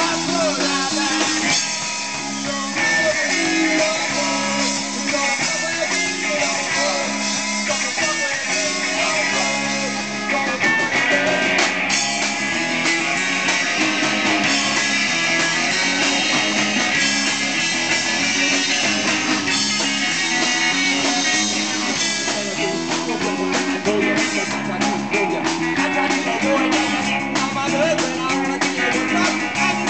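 Live rock band playing: electric guitar over a drum kit, with drum hits standing out more near the end.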